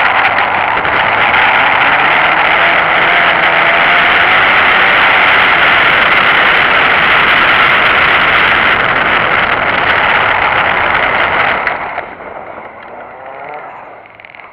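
Turbocharged Mitsubishi Lancer driving through a cone course: a loud, dense rush of engine and wind noise with faint shifts in engine pitch. It drops off sharply about twelve seconds in as the car slows, leaving a quieter engine note that rises again near the end.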